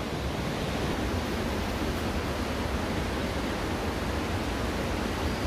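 Waterfall cascade: falling water rushing steadily, without a break.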